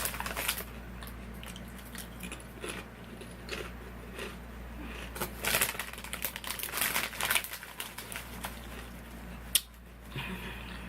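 Wavy potato chips being eaten: irregular crinkling of the chip bag and crunching, busiest about halfway through.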